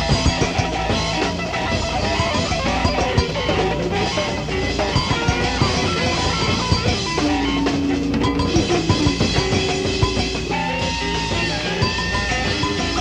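Electric jazz-rock band playing live, taped from the audience: trumpet over electric guitar, electric piano, bass and drums, with held notes that bend in pitch and busy drumming.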